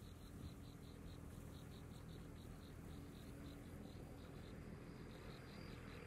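Faint insect chirping, an even series of high pulses at about five a second, over a low background rumble.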